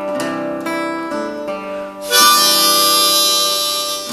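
Acoustic guitar strumming the outro of a song, with a harmonica coming in loud about halfway through on a held chord that ends just before the song stops.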